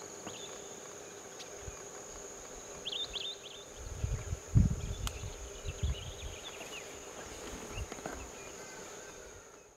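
Steady high insect trill, like a cricket, with short chirping calls of small birds about three seconds in and again around six seconds. Low rumbling bumps come in the middle, the loudest sound there.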